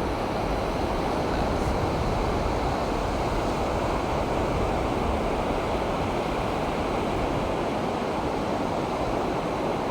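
Ocean surf washing onto the beach and jetty rocks, a steady rush of noise.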